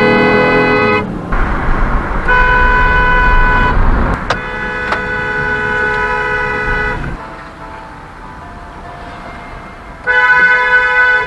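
Car horn honking in long held blasts: one ends about a second in, a second lasts about five seconds, and a third starts near the end, with traffic noise in the gaps.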